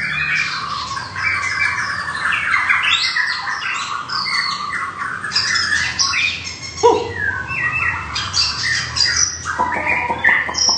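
Caged white-rumped shamas singing: a fast, unbroken stream of varied whistled phrases, rapid up-and-down glides and harsh chattering notes. A few louder, lower notes break in during the second half.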